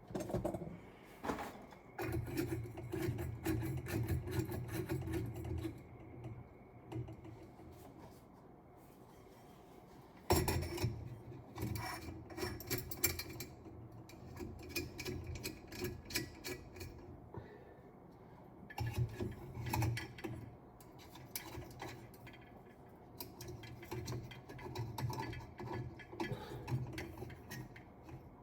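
Rubbing, scraping and small clicks as glass shades are fitted into the metal holders of a ceiling fan light kit and their screws are turned down by hand, in several spells with pauses between.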